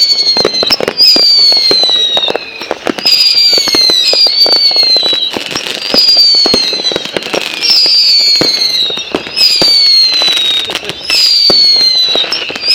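Whistling fireworks going off over and over. Each gives a loud whistle about a second long that falls slightly in pitch, and the whistles come back to back with crackling pops between them. The speakers call it screaming, like laughing.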